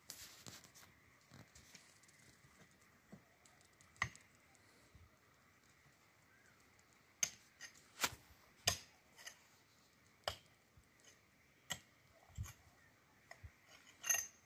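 Irregular light knocks and clicks, about a dozen spread through, with the loudest cluster near the end.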